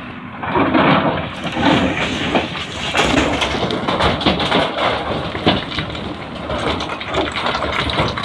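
JCB 3DX backhoe loader's diesel engine working under load while its loader bucket scrapes at the tipper's load of stones, with stones grinding and clattering as a dense stream of irregular crackles and knocks.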